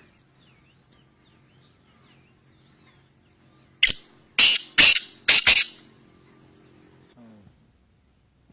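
Black francolin calling: a burst of five loud, harsh, grating notes in under two seconds, partway through. A faint steady high-pitched tone sits behind it.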